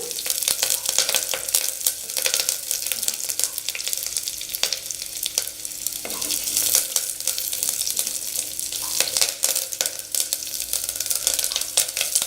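Chopped onion and curry leaves sizzling in hot oil in a clay pot over a low flame, stirred while they sauté, with a steady hiss and frequent small crackles.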